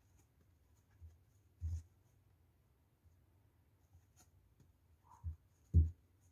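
Handling noise from crocheting yarn into a slipper sole with a hook: faint scratching and a few short, dull thumps, the loudest near the end.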